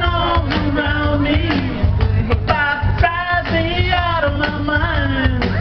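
A man singing karaoke into a microphone over a rock backing track with a steady bass line.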